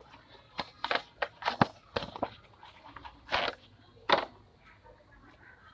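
Handling noises from air filter elements: a quick run of short rustles, clicks and knocks from about half a second in until just past four seconds, as the filters are picked up and set down side by side.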